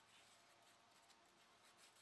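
Near silence with faint scratching: a pencil tracing a curve along a bent steel ruler on an end-grain wood panel.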